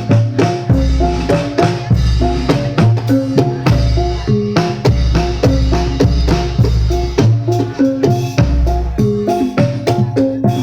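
Javanese gamelan ensemble playing: a melody of struck metallophone notes over deep, regular drum beats and quick percussive strikes.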